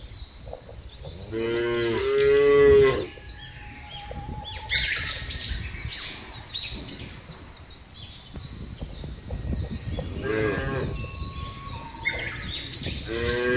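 Cattle mooing: a long, loud moo about one and a half seconds in, another around ten seconds in, and a third rising near the end.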